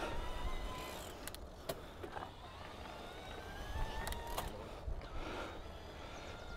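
Bosch electric-bike mid-drive motor whining under Turbo assist on a steep climb, its pitch rising slowly, with a few sharp clicks from the bike over rough ground.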